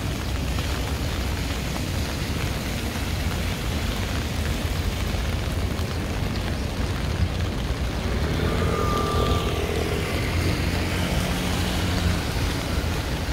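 Heavy rain falling on a city street, a steady hiss over a low rumble, with a motor vehicle's engine passing through in the second half.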